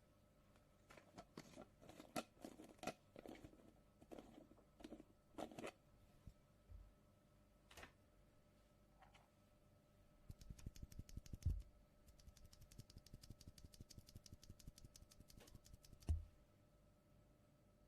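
Faint keystrokes on a mechanical keyboard with Gateron Milky Yellow Pro linear switches. Scattered presses come first, then a fast, even run of strokes with two louder bottom-outs.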